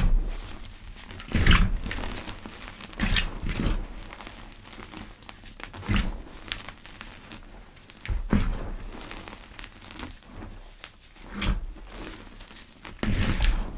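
Gym chalk pebbles being crushed, each squeeze giving a short soft crackling crunch. About eight crunches come in a loose series, with quiet pauses between them.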